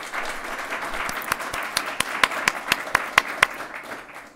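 Audience of dinner guests applauding: many hands clapping together, with a few louder single claps standing out in the middle, dying away near the end.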